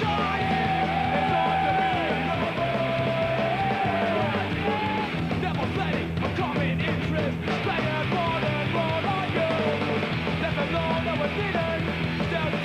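Punk rock music with a shouted vocal over a steady band.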